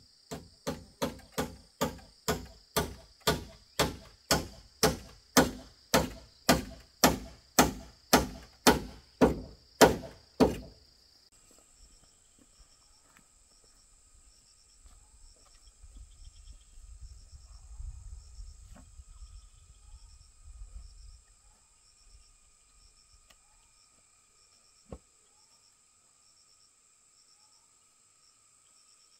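A hammer strikes a log roof beam about twenty times, roughly two blows a second, the blows growing louder before they stop, as it drives a nail into the wood. Then insects chirp steadily, with a low rumble and a single thump later on.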